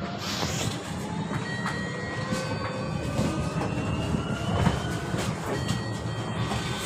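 Volvo BZL battery-electric bus's drive motor whining, several tones slowly rising in pitch as the bus picks up speed, over a steady road rumble. Short knocks and rattles come and go, the loudest about two thirds of the way in. Heard from inside the passenger cabin.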